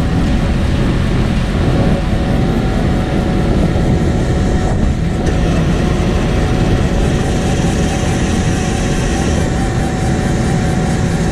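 Cat AP655F asphalt paver working while it lays asphalt: the diesel engine and paving machinery running steadily at work load, with a faint steady whine over the noise.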